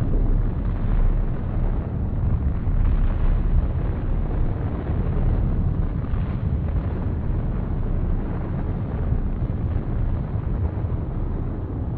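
Deep, continuous rumble of a huge explosion, the sound laid over an atomic bomb blast and its spreading smoke cloud. No single bang stands out, and it eases slightly toward the end.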